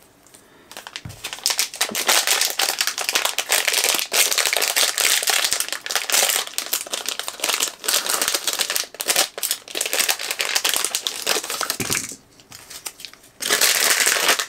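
Foil blind bag crinkling and crackling as it is handled and torn open by hand, with a short lull near the end before the crinkling resumes.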